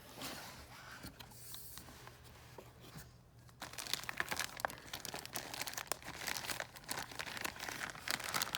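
A cardboard pistol box being opened and the paper and packing inside handled: rustling and crinkling, getting louder and busier about three and a half seconds in.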